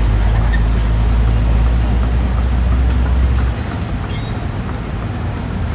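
Excavator's diesel engine running under load with a deep rumble that drops off about three and a half seconds in, over a steady mechanical clatter, with a few short high squeaks near the end.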